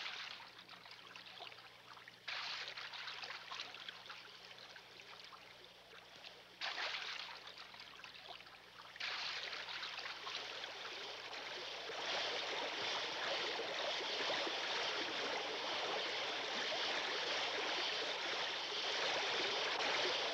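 Mountain stream water rushing and splashing over rocks in shallow rapids. It jumps abruptly in loudness several times, then settles into a louder, steady rush of white water about halfway through.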